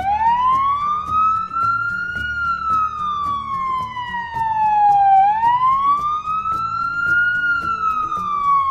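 Fire truck siren wailing in a slow rise and fall. The pitch climbs for about two seconds, sinks over about three, climbs again, then cuts off suddenly.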